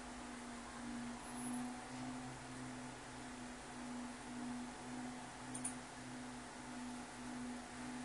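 Brastemp Vantage top-load washing machine running its wash cycle: a steady low motor hum that swells and eases in a regular pulse, about once a second, under a faint hiss. A light click about five and a half seconds in.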